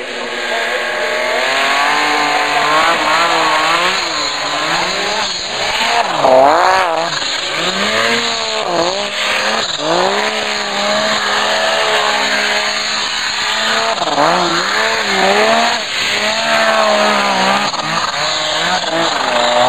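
Rotax snowmobile engine running hard, its pitch rising and falling again and again as the throttle is opened and closed through jumps and carves.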